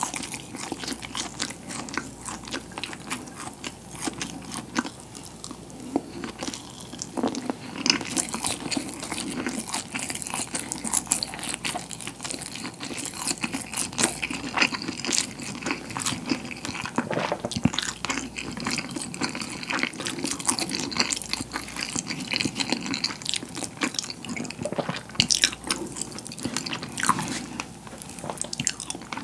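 Close-miked chewing of mouthfuls of rice with salted pollock roe, full of wet mouth clicks and smacks.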